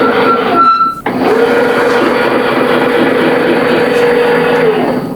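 Electric motor of a motorized drill press table lift running with a steady whine. It stops just before a second in, starts again at once, and runs for about four seconds before winding down near the end.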